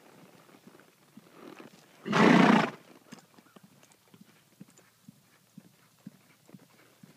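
Faint hoofbeats of a loping horse on arena dirt, broken about two seconds in by one loud, rushing burst of noise lasting about half a second.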